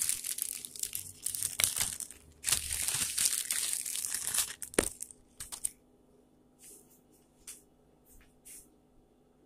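Plastic bag crinkling and rustling close to the microphone in dense bursts for about five or six seconds, then only a few faint brief rustles.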